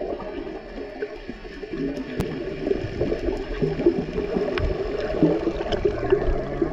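Muffled underwater gurgling and bubbling, with a few light clicks, from a freediver's exhaled air bubbles, picked up by a camera under water.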